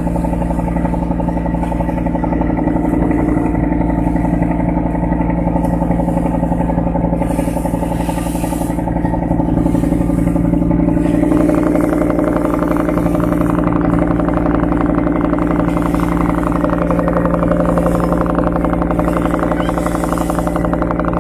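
Fishing boat's inboard engine running steadily and loudly, heard from on board, growing a little louder about halfway through.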